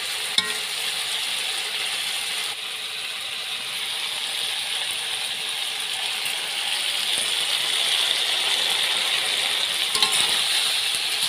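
Duck meat and potatoes sizzling steadily as they are dry-fried in a large kadai, with a spatula scraping and stirring against the pan to keep the masala from sticking.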